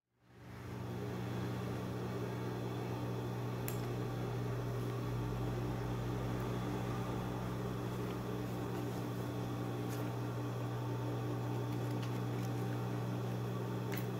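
LUKI industrial sewing machine's motor running with a steady hum, a few faint clicks over it.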